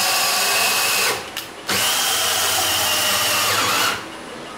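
Cordless drill turning a mill's Y-axis ball screw to drive the saddle along its travel. It runs as two steady stretches of motor whine with a short pause about a second in, and the second run slows and stops near the end.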